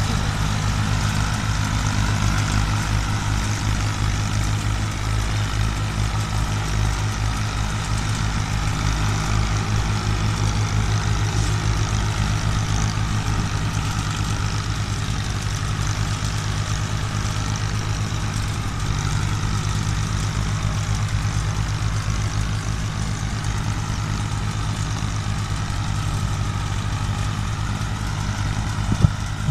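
Farm tractor diesel engines chugging steadily as one tractor tows another, with a loaded trailer, through a muddy riverbed. A short knock or two near the end.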